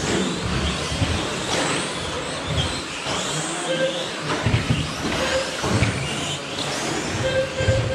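Several 1/10 scale electric short course RC trucks racing: high motor and drivetrain whines rising and falling with the throttle, mixed with tyre noise and knocks from landings and contact. Short beeps come a few times.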